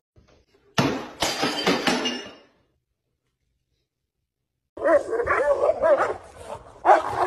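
A dog crunching and cracking a hard bread stick with a run of crisp crackles, then, after a silent gap, a dog's whining calls that rise and fall in pitch near the end.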